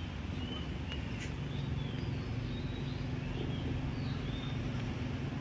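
Small birds chirping in short, scattered high calls over a steady low machine hum.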